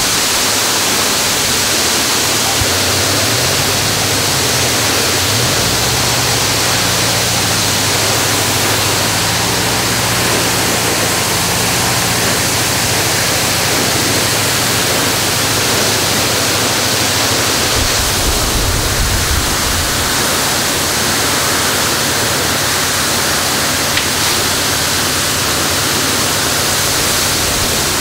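Water gushing from a fire hydrant struck by a car, shooting up in a tall geyser and falling back as heavy spray. It makes a steady, loud hiss.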